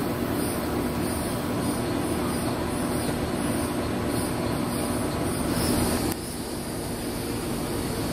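Steady mechanical hum with a constant low drone, and a faint high-pitched pulsing repeating a little under twice a second. The hum drops slightly about six seconds in.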